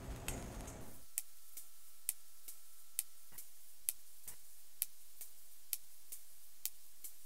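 Sperm whale echolocation clicks recorded underwater, the regular clicking of a whale foraging for prey. Sharp clicks come about once a second, starting about a second in, with fainter clicks between them.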